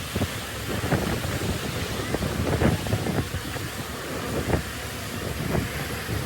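Heavy earthmoving machinery's diesel engine running with a steady rumble, with wind buffeting the microphone in irregular gusts.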